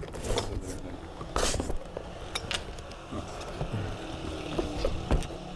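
Large hardcover books being lifted, shifted and set down on a stack: a few short knocks of the covers and a brief brushing slide about a second and a half in, over a steady low hum.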